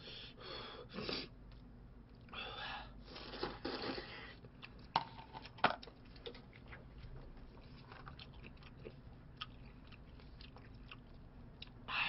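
Close-up eating sounds of budae-jjigae noodles and rice: noisy slurping and chewing in the first few seconds. Two sharp clicks come about five seconds in, then softer scattered chewing clicks.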